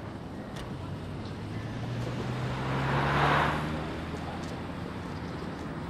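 A car driving past: its engine hum and tyre noise swell to a peak about three seconds in, then fade away.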